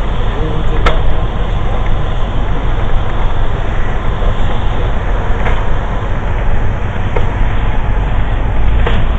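Bulldozer's diesel engine running steadily under load while clearing snow, a deep continuous rumble with a few sharp clicks or clanks.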